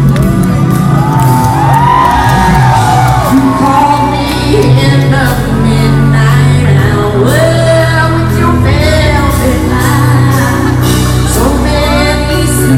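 Live pop concert music: a female lead singer sings a sliding melody over a full band with a steady bass line, with shouts and whoops mixed in.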